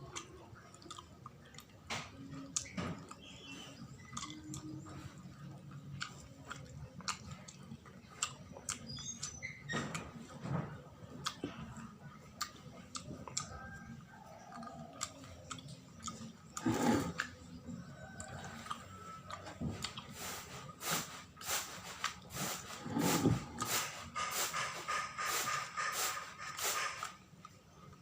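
Close-up chewing and mouth sounds from eating sawella, a sticky sweet of glutinous rice, coconut and palm sugar: wet smacks and clicks, coming thicker and louder in the last several seconds.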